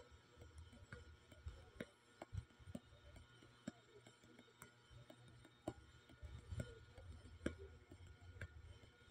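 Near silence: faint scattered clicks and ticks over a low hum.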